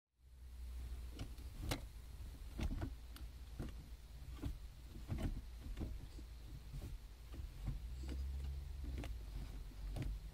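Saab 900 manual gear lever being worked through its gates, giving irregular clicks and knocks about once a second, over a low steady hum.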